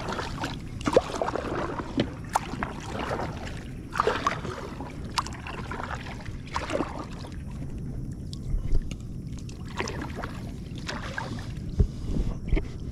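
Water splashing and swishing around an inflatable packraft at irregular intervals, with a few low knocks against the hull near the end.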